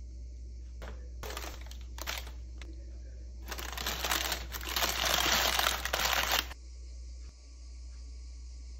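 Parchment baking paper crinkling and rustling as it is handled around freshly baked loaves. A few short rustles come first, then a longer, louder crinkling in the middle that stops abruptly.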